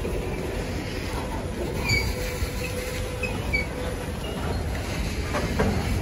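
Freight train boxcars rolling past: a steady low rumble of steel wheels on the rails, with a thin squeal and a few short squeaks in the middle and a couple of knocks near the end.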